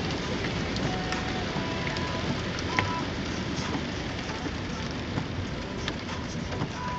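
Heavy rain hitting the windshield and roof of a moving car, heard inside the cabin: a steady hiss with many separate drop ticks over low road noise.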